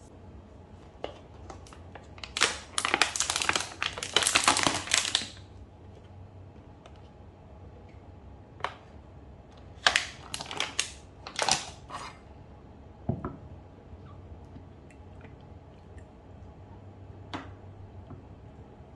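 Clear plastic tomato packaging crinkling and crackling as it is handled and opened, in two spells: about three seconds long starting two seconds in, and a shorter one about ten seconds in. A few light knocks follow.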